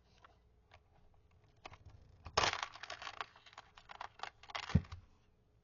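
Necklace beads clicking and rattling together as the necklace is taken apart, turning into a dense clatter about halfway through, with a single knock near the end.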